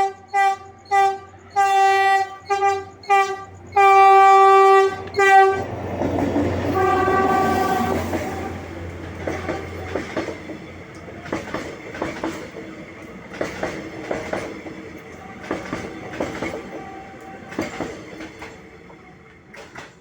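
PNR train horn sounding a run of short and long blasts on one note, the last and longest about four to five seconds in. The train then rumbles past with one more brief toot, and its wheels clack in pairs over the rail joints, slowly fading.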